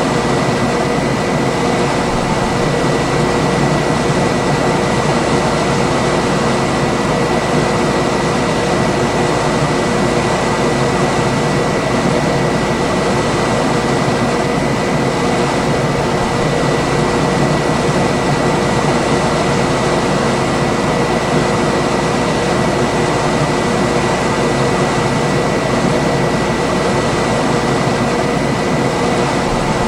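Room air conditioner running steadily: an even fan noise with a faint high steady whine and a couple of lower hums riding on it.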